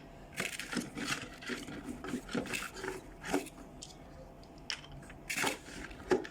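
Packaging and plastic toy parts being handled: irregular rustling, rubbing and light clicks, with a couple of sharper knocks near the end.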